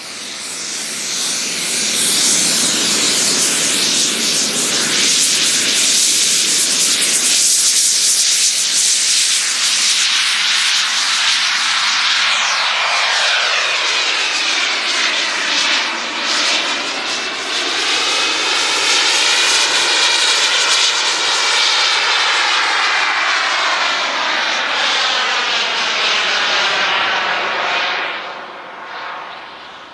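JetCat P100-RX model jet turbine in a radio-controlled Swift glider, throttled up for the take-off run and then running at high power in flight. It makes a loud, steady jet whine and rush that swells over the first couple of seconds, sweeps up and down in tone as the glider passes, and drops away near the end.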